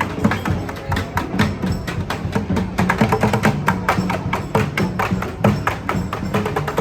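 A parading street band playing, led by busy percussion: quick, sharp, wood-block-like strikes over low held notes.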